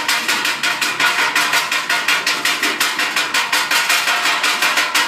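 Improvised street drum kit of metal pots, pans and bowls beaten in a fast, steady rhythm, about five or six bright metallic hits a second.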